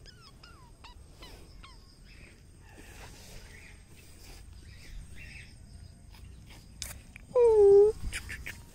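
Pug puppy giving one short, loud whine of about half a second near the end. Faint high chirps come before it in the first couple of seconds.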